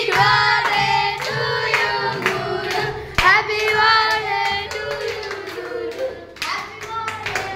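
A group of voices singing together, with hand clapping along.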